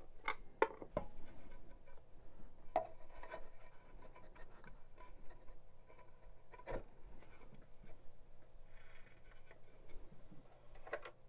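Scattered light clicks and knocks as a Sony PS-X45 turntable's platter and tools are handled and the platter is fitted back on by hand, over a faint steady hum.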